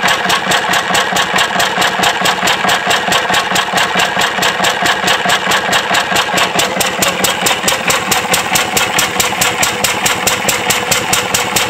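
Crossley 3 HP horizontal single-cylinder stationary engine running steadily, its exhaust beating at a fast, even rhythm.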